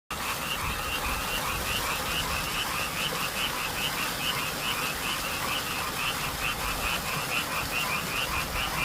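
A chorus of many frogs calling on a spring night, short croaks overlapping in a steady rhythm of several calls a second.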